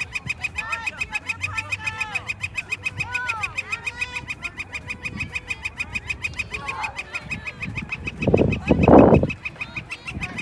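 Birds chirping: a fast, steady high-pitched ticking trill of about nine notes a second runs throughout, with shorter arching chirps over it in the first few seconds. A louder, harsher call or noise comes about eight to nine seconds in.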